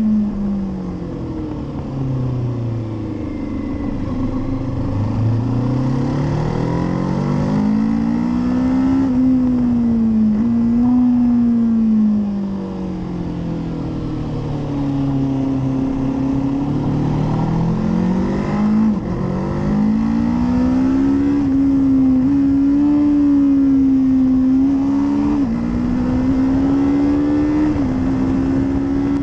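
Kawasaki Z650's parallel-twin engine at riding speed, its note repeatedly falling as the bike slows for bends and rising again under acceleration, with brief pitch breaks at gear changes. Steady wind rush over the bike-mounted microphone runs underneath.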